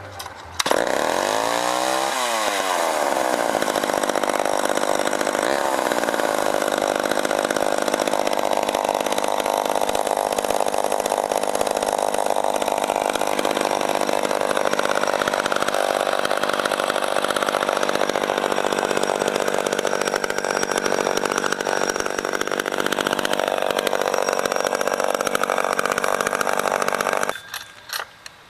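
Chainsaw engine catching about half a second in, its pitch dipping and climbing in the first few seconds, then running steadily at high speed until it cuts off abruptly about a second before the end.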